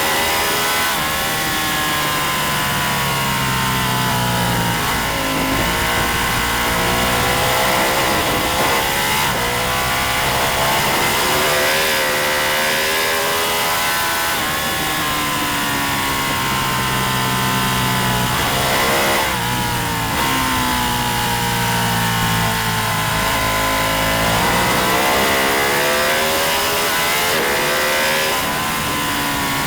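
Racing motorcycle engine running hard, its pitch climbing under throttle and dropping back several times as it shifts and slows for corners, over a steady high hiss.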